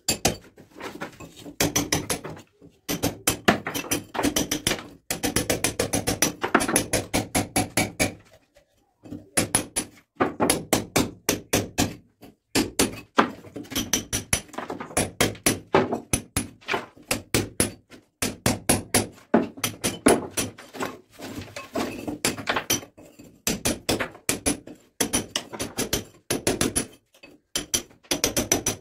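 Hand hammer striking a steel chisel into a brick wall, cutting a groove for electrical wiring: rapid sharp blows, several a second, in runs broken by short pauses.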